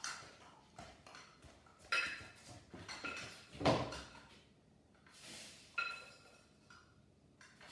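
About four knocks and clinks of a measuring cup against a glass mixing bowl while excess salt is shaken back out, spaced a couple of seconds apart, some with a short ring, the loudest about halfway through.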